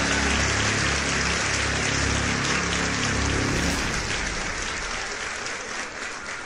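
Crowd applause over music. The music stops about four seconds in, and the applause fades away after it.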